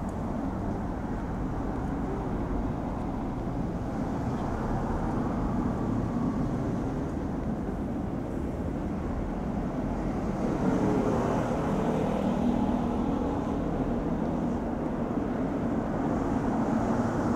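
Road traffic on a city street: a steady low hum of passing cars, louder for a few seconds about ten seconds in.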